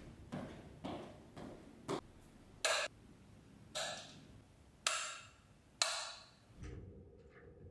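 Footsteps in soft slippers on a tile floor: a run of short scuffing steps, about two a second at first, then four louder, sharper scuffs about a second apart.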